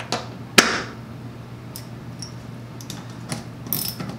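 Small metal parts clicking and clinking on a wooden workbench as a socket and spacer are handled around a caster's axle bolt. There are two sharp knocks in the first second, the second one louder, then scattered light ticks and a quick run of small clicks near the end.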